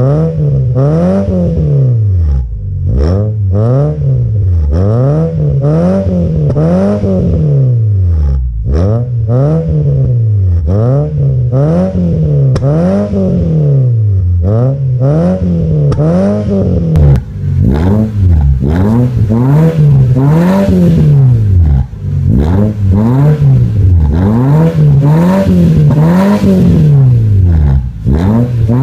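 2017 Nissan Juke with an aftermarket full exhaust system and air intake, revved over and over from idle, about one rev every second and a half, each rising and falling in pitch. About seventeen seconds in, the exhaust note turns harsher and brighter.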